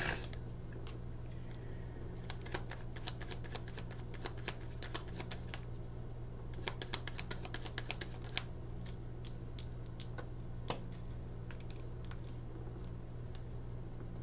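Tarot cards being pulled from the deck and laid onto the cloth-covered spread, giving irregular clusters of sharp clicks and taps as long acrylic nails strike the card stock. A steady low hum runs underneath.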